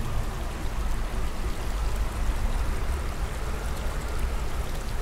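Shallow rocky creek running, a steady rush of water over a constant low rumble.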